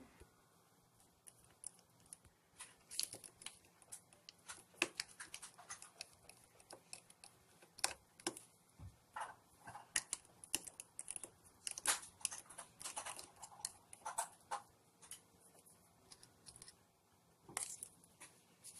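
Precision screwdriver driving the small screws of a 2.5-inch laptop hard drive's controller board: irregular small clicks and ticks of the bit in the screw heads and the tool and drive being handled, often several in quick succession.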